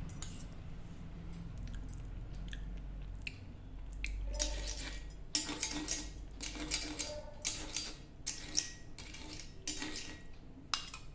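Metal spoon clinking again and again against a steel vessel, the clinks ringing briefly, most of them in the second half. A low steady rumble sits underneath, strongest in the first few seconds.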